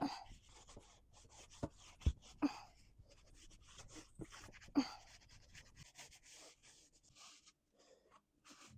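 Wiping the inside of an oven with a wet paper towel: a run of short rubbing strokes, with a few light knocks about two, two and a half and five seconds in.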